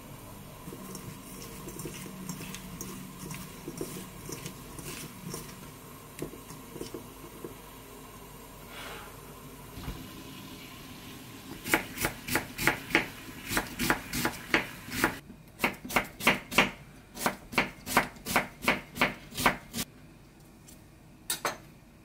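Light taps and soft rustling as salt is spooned over sliced cucumber in a steel bowl and rubbed in. About halfway a kitchen knife starts slicing an onion on a wooden cutting board: a quick, even run of sharp knocks, about three a second, for some eight seconds, then stops.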